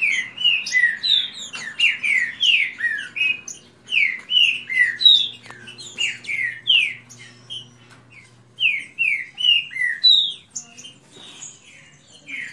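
Green-winged saltators (trinca-ferro) singing against each other in a song duel: quick runs of short, falling notes, with brief lulls about two-thirds of the way through and near the end.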